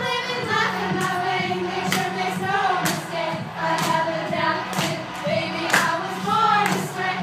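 Several voices singing a song together over music with a steady beat of about one stroke a second.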